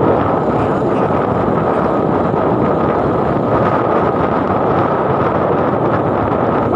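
Wind rushing over a phone microphone on a moving motorcycle, a loud steady roar that covers the road and engine noise beneath it.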